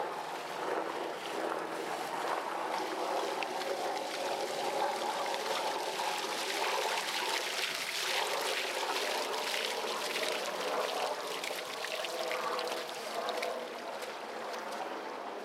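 Muddy floodwater running and splashing down stone steps and across flooded paving, a steady rush of water.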